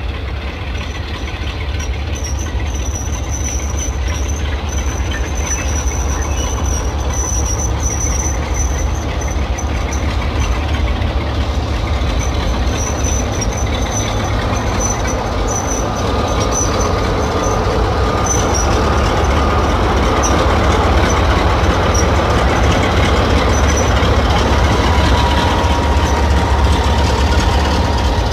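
Class 46 diesel locomotive 46 034, with its Sulzer 12-cylinder engine, working a 40-wagon freight down the Lickey Incline with the wagon brakes pinned for the descent. A steady low rumble of engine and rolling wagons grows gradually louder as the train comes nearer, with a thin squealing tone near the end.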